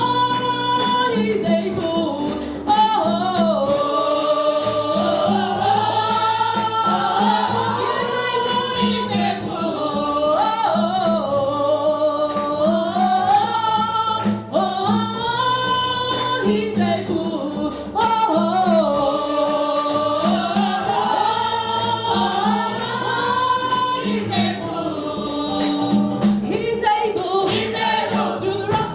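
Gospel praise singing with instrumental backing: a lead voice sings a winding melody over a steady repeating bass line.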